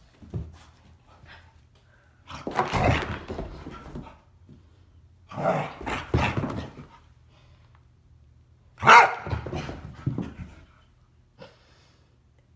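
A dog barking excitedly in play while doing post-bath zoomies, in three bouts of a second or more each.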